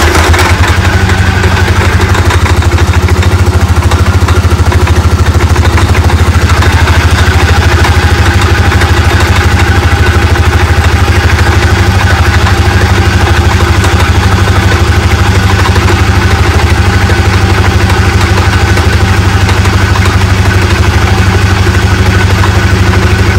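Polaris Sportsman ATV engine idling steadily and loudly at close range, with the CVT cover off and the clutch and belt turning. With a shim taken out of the clutch, the driven clutch still turns at idle: the hard-shifting, creeping-at-idle fault is not cured.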